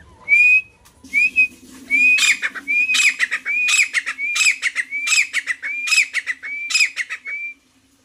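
Grey francolin calling: a series of about ten loud, short rising whistled notes, evenly spaced at roughly one every two-thirds of a second, turning harsher about two seconds in and stopping abruptly near the end.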